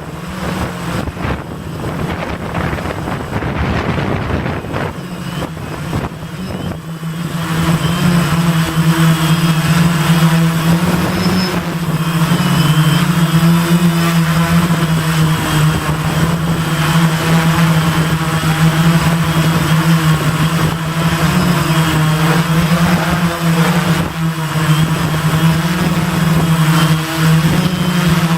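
Gaui 500X quadcopter's electric motors and propellers buzzing in flight, a steady hum whose pitch wavers slightly as the throttle changes. It turns louder and clearer about seven seconds in; before that, wind rumble on the microphone covers it.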